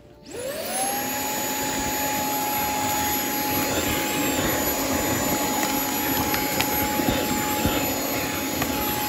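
Dreo cordless handheld vacuum with a brush nozzle switching on, its motor whine climbing within half a second to a steady high-pitched hum as it vacuums the inside of a fabric tote bag. It cuts off abruptly at the very end.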